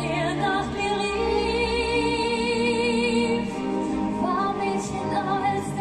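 Music with a singing voice over accompaniment, a long note held with vibrato through the middle.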